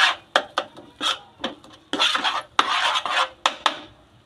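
A spoon scraping and stirring a thick jaggery mixture in a cooking pan: several short scraping strokes with a few sharp clinks of the spoon against the pan, stopping just before the end.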